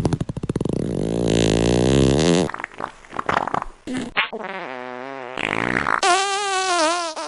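A string of fart sounds. First comes a long, low rattling one, then a few short sputters, then two pitched, squeaky ones, the second longer and wavering up and down in pitch.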